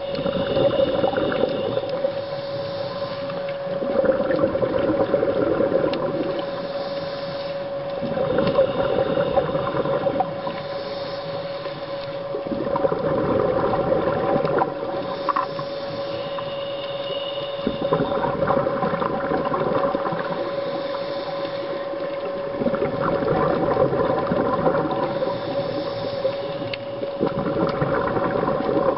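Diver's scuba regulator breathing, heard underwater through the camera housing: a thin hiss on each inhale alternating with a rush of exhaust bubbles on each exhale, about one breath every four to five seconds, over a steady hum.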